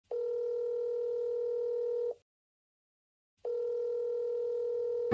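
Telephone ringback tone, the ringing heard by a caller waiting for an answer: a steady tone sounds for about two seconds, stops, and comes back about three and a half seconds in.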